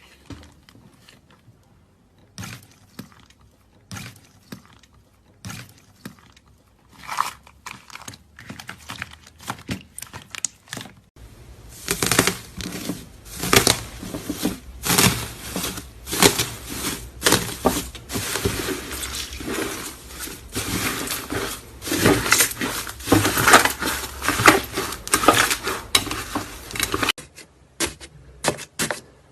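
Slime being squeezed and worked by hand, giving sticky crackling pops. The pops are scattered at first, then come thick and fast from about eleven seconds in, and thin out again near the end.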